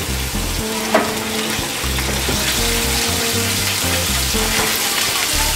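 Seafood and ají sauce sizzling in a cast-iron skillet over a gas burner while being stirred with a spoon, with a single sharp knock about a second in.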